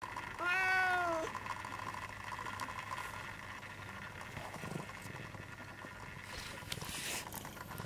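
Domestic cat meowing once, a single steady call just under a second long, starting about half a second in. Faint rustling follows near the end.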